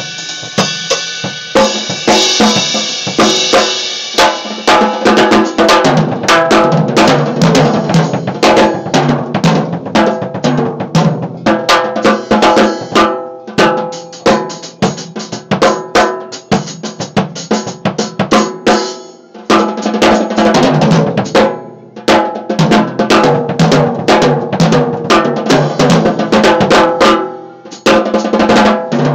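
Acoustic drum kit played with sticks: a busy stream of strokes on the drums with bass drum, and a cymbal ringing out over the first few seconds. The playing breaks off briefly twice, once about two-thirds of the way through and once near the end.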